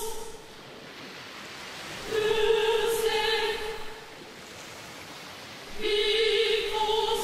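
Background music: a held, choir-like chord that swells in twice, about two and six seconds in, each time for a second or two, over a steady wash of surf-like noise.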